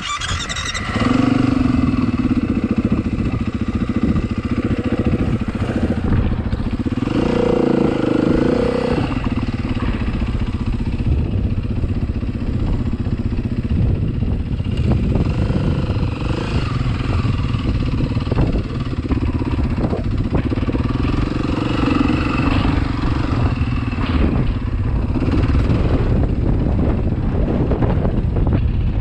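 Dual-sport motorcycle engine starting right at the beginning, then running as the bike is ridden over rough, rocky desert dirt. The engine pitch rises and falls with the throttle.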